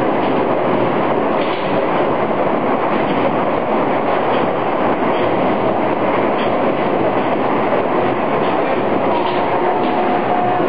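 A towing-tank carriage running along its rails as it tows a rowing shell hull, with water rushing past the hull: a steady, even rushing rumble. A faint steady whine comes in near the end.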